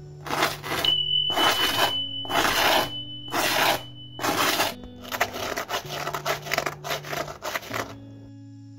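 Serrated bread knife scraping back and forth across the crisp, browned underside of a pan pizza baked in a blue iron pan. There are about five separate scratchy strokes, then a quicker run of shorter ones; the crackle shows how crunchy the base is. Soft background music plays under it.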